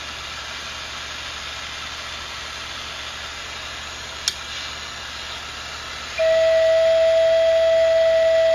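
Steady background hiss with one sharp click about four seconds in, then a river-cane Native American flute sounds a single steady, pure note held for the last couple of seconds: a tuning check on a finger hole that has just been burned out.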